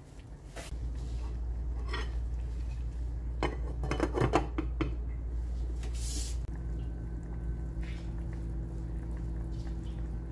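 A saucepan and its glass lid clinking and clattering on a glass cooktop, with a quick cluster of clinks a few seconds in and a sharper clatter about six seconds in. A steady low hum runs underneath.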